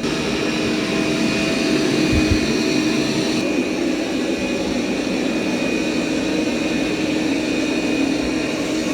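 Dreame L20 Ultra robot vacuum running on carpet: its suction fan gives a steady airy rush with a faint hum under it.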